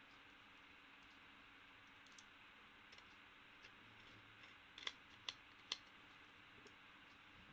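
Faint clicks of small hard parts being handled while a drive is fitted into a laptop: a few light ticks, then three sharper clicks about half a second apart a little past the middle, over low room hiss.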